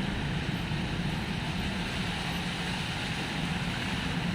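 Steady road traffic noise: a low, even hum of vehicle engines on a congested street, with no single vehicle standing out.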